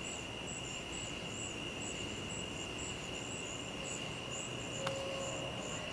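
Night insects chirping: a steady high-pitched trill, with a higher chirp pulsing about twice a second above it. A single sharp click sounds about five seconds in.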